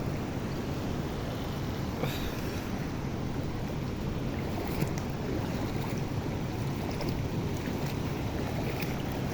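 Steady rushing of a large waterfall, with wind on the microphone.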